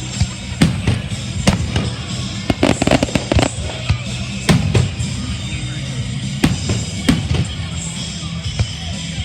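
Fireworks shells bursting in a series of sharp bangs, with a rapid cluster of bursts about three seconds in, over steady background music.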